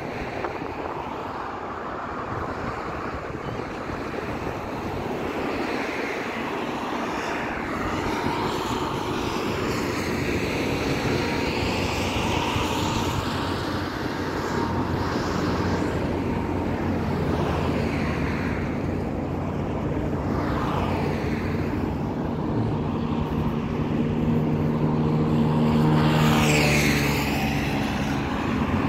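Road traffic: cars driving past one after another on a city road. In the second half an engine's hum grows louder, and near the end a vehicle passes close, its sound falling in pitch as it goes by.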